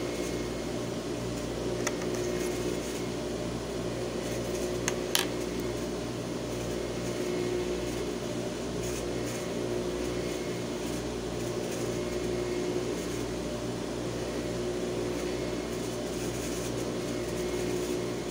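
Steady low hum of an electric motor running idle, with a sharp click about five seconds in.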